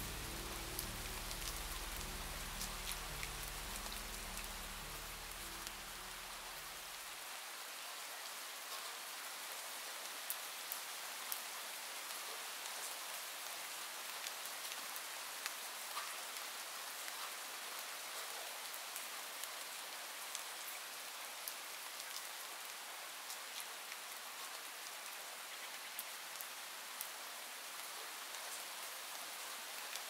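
Steady rain falling, an even hiss with scattered individual drops ticking sharply here and there. Low, sustained tones underneath stop about seven seconds in.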